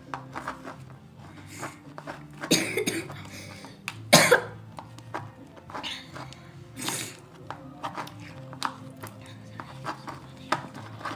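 A person coughing, three short coughs spread over several seconds, over faint steady background sound.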